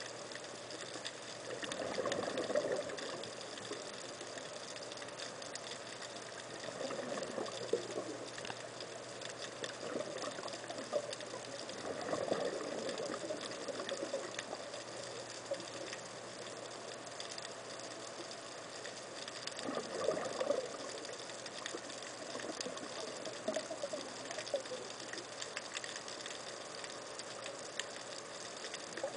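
Scuba diver's exhaled bubbles coming out of the regulator underwater, one bubbly burst for each breath out, a few seconds apart over a steady faint hiss.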